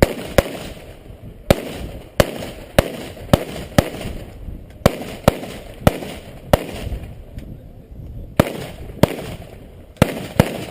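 A string of about sixteen shots from an AR-15-style rifle, fired at an uneven pace roughly half a second to a second apart, with a gap of nearly two seconds past the middle.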